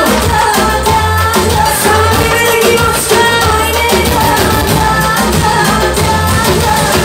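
A female singer performing a Bulgarian pop-folk (chalga) song live, her voice held over a loud backing track with a strong bass line.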